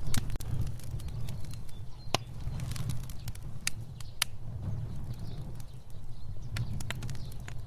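Fire burning: a steady low rumble of flames with irregular sharp crackles and pops.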